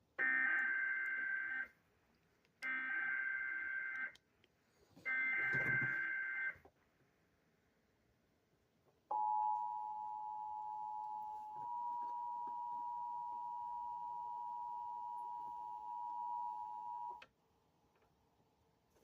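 Emergency Alert System header for a new severe thunderstorm warning: three bursts of screechy, warbling SAME digital data, each about a second and a half long, followed a couple of seconds later by the two-tone EAS attention signal held steady for about eight seconds, then cut off abruptly.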